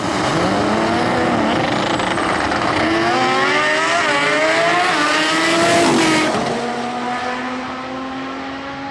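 Two drag-racing engines, one of them a Mustang running 24 pounds of boost, revving hard at the start line with rising pitch, loudest about six seconds in as they launch, then dropping away as the cars pull off down the strip.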